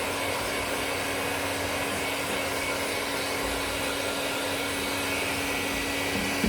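Hot-air blower set to 50 degrees running steadily, a constant rush of air with a low steady hum, drying freshly applied glue on a TPU patch faster.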